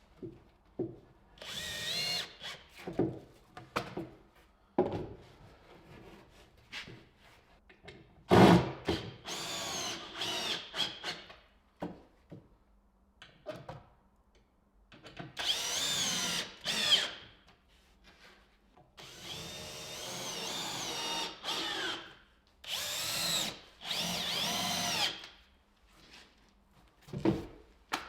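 Handheld power tool run in about five bursts of one to three seconds each, its whine rising and falling in pitch as the speed changes, with knocks in the pauses between bursts.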